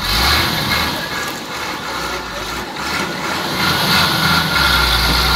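Heavy truck engine running at low revs as the truck manoeuvres slowly, its low drone getting louder near the end.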